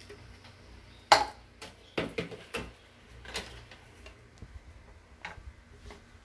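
Irregular light knocks and clicks of plastic containers being handled: chopped celery tipped from a plastic cup into a plastic blender jar, the cup set down and the jar picked up. The sharpest knock comes about a second in.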